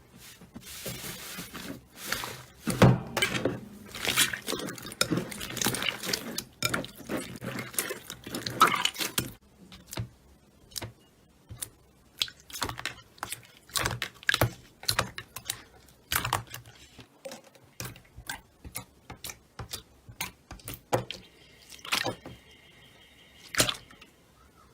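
Slime being squeezed and pressed by hand, giving many small sticky clicks and pops, dense for about the first nine seconds, then sparser single pops.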